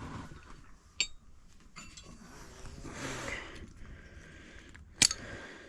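Metal wrench parts being handled on a workbench: a light ringing metallic clink about a second in, soft handling noise, then a louder sharp metal knock near the end.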